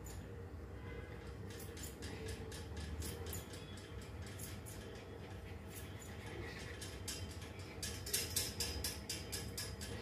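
Grooming scissors snipping through a Shih Tzu's long ear hair, a string of short crisp snips that comes faster and sharper over the last two seconds.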